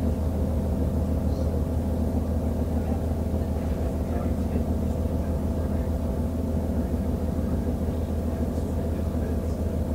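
Steady drone of a VT 628.4 diesel railcar heard from inside, its MTU 12V 183 TD13 diesel engine running evenly.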